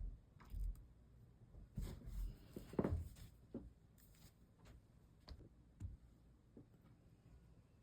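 Scattered light taps and clicks of hand work at a stained glass bench, irregular, the loudest about three seconds in.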